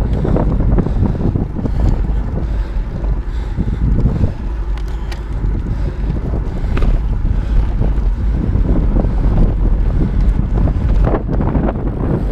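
Wind rushing over the microphone of a camera moving fast along a paved path: a loud, steady low rumble, with a few brief clicks in the middle.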